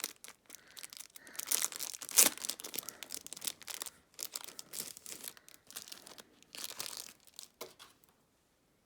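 Packaging being unwrapped by hand: irregular crinkling and tearing, with the loudest rip about two seconds in, stopping shortly before the end.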